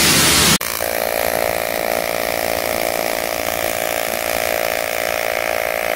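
AC TIG welding arc on aluminium, a steady buzz with a hiss over it. A loud hiss in the first half-second cuts off suddenly before it.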